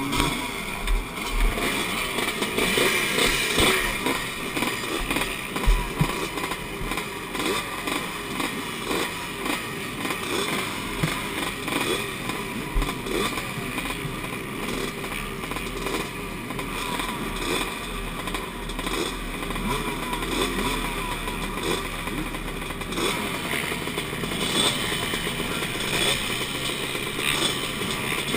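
Several vintage motocross bikes idling and being blipped together at the starting gate, waiting for the start, with a few dull knocks on the mounted camera.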